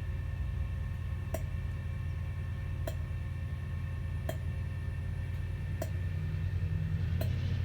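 A steady low rumble from a train at a station, with a sharp tick about every second and a half.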